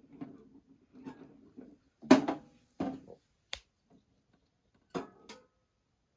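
A soft rustle, then about five sharp clacks and knocks of hard plastic toys being handled and set down, the loudest a little after two seconds in.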